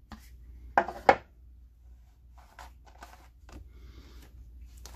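A small cardboard product box being opened and handled: two short sharp scrapes about a second in, then quieter rustles and light taps of cardboard and paper.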